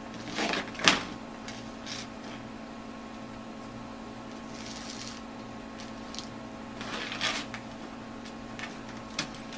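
Small handling noises: scattered clicks and brief rustles as a resistor and multimeter test leads are picked up and handled, with the loudest click about a second in. A steady electrical hum sits underneath.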